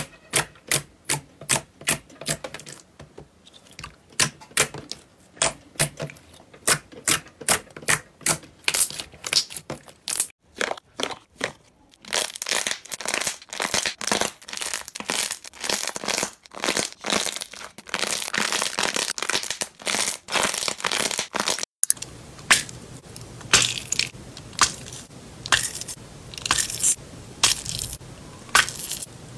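Slime being pressed and worked by hand: a run of sharp sticky pops and clicks, two or three a second, giving way about twelve seconds in to a dense crackling, then after an abrupt change near twenty-two seconds, separate pops again.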